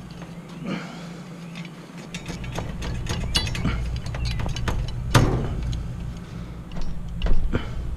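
Hand work on the wiring of a heat pump's compressor: a run of small metallic clicks and rattles as wire connectors are worked off, with a sharper knock about five seconds in and another near the end.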